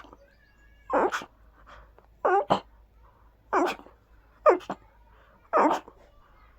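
A woman's rapid sneezing fit, set off by perfume: about five short, sharp sneezes in quick succession, roughly one a second, into hands cupped around her nose.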